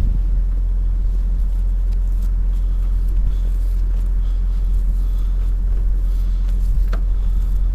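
Kobelco SK210 excavator's diesel engine running steadily with an even low drone, and one faint click near the end.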